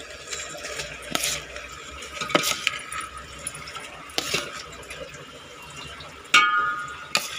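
Washed rice being tipped from a bowl into a cooking pot: scattered taps and clinks of the bowl against the pot over a soft wet rustle. A sharper clang with a short ring comes near the end.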